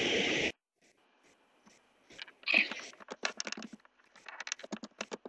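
A half-second burst of hiss that cuts off suddenly, then a run of irregular clicks from typing on a computer keyboard.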